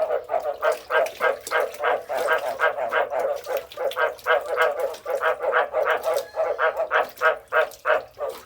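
Frogs calling: a rapid run of short, pulsed croaks, about three or four a second, keeping on steadily.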